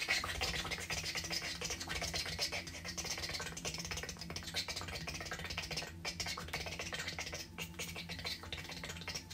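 A dense, fast, scratchy crackling hiss that starts suddenly and runs on with a few brief breaks in the second half, over a steady low hum.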